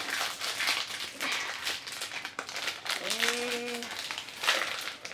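Crinkling and rustling of plastic toy blind-bag wrappers being opened by hand, with a short voiced hum about three seconds in.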